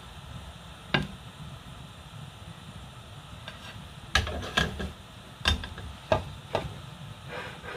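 Sharp clinks and knocks of a ceramic plate and utensil against the rim of an aluminium cooking pot as cooked meat is tipped from the plate into the soup: one about a second in, then five in quick succession in the latter half, over a steady low hum.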